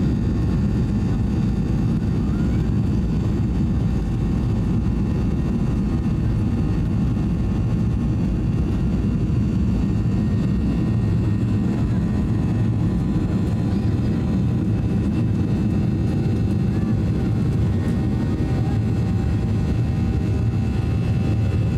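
Cabin sound of a Boeing 737-800's CFM56-7B engines at takeoff power through the takeoff roll, liftoff and initial climb. It is a loud, steady low rumble with several steady whining tones over it.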